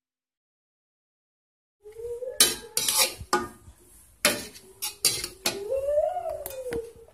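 Metal spatula clinking and scraping against a metal wok while stir-frying noodles, a string of sharp clacks starting about two seconds in. A wavering tone runs underneath.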